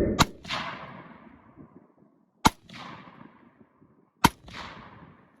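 Three gunshots about two seconds apart, each sharp crack followed by an echo trailing away for about a second.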